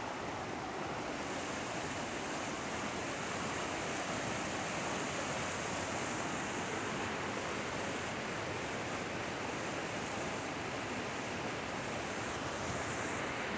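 Swollen, muddy creek rushing steadily over rocks and a small cascade, a continuous even roar of water.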